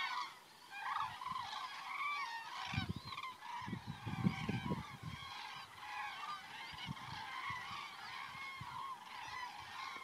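A flock of common cranes calling, many birds' calls overlapping continuously, with a low rumble about three to five seconds in.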